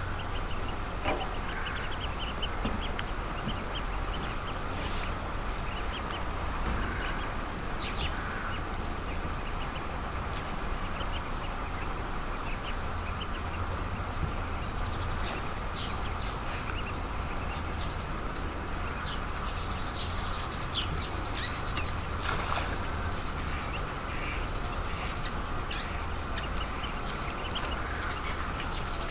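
Ducks quacking, with ducklings' short high peeps scattered throughout, over a steady low rumble.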